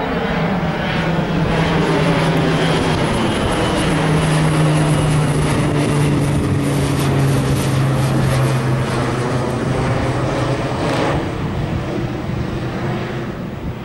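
Pilatus PC-12's single PT6A turboprop engine and propeller at takeoff power, passing by. The propeller tone drops in pitch about four seconds in and again later. The sound fades near the end as the aircraft climbs away.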